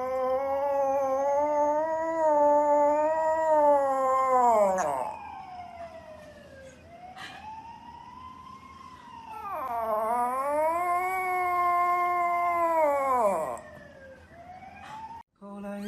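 Small poodle howling: two long howls that each rise, hold steady and fall away, with a fainter howl between them.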